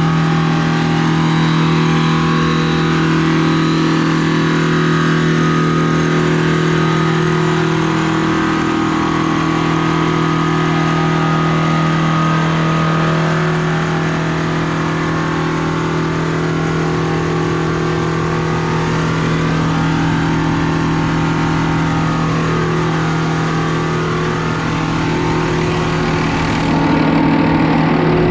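Combine harvester running steadily at constant engine speed while harvesting wheat, a continuous engine and machinery drone with a strong low hum; it gets a little louder near the end.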